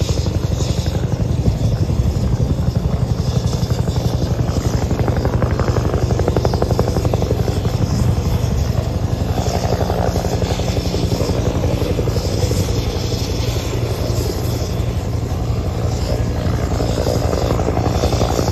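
Bell 205 helicopter on its landing approach, its two-bladed main rotor beating in a fast, steady rhythm over the turbine engine.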